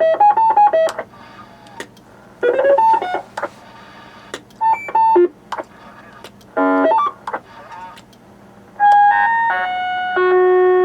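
Electronic roger beeps and short tone tunes from a CB noise toy box, played through a radio's speaker. Four quick bursts of stepping beeps come about two seconds apart, each set off by clicks. Held, chord-like tones follow near the end.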